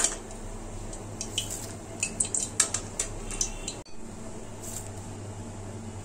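Steel slotted skimmer clinking and scraping against a steel wok and bowl as fried curry leaves are lifted out of the oil and tipped onto fried chana dal. There is a string of sharp clinks over the first three and a half seconds, then only a steady low hum.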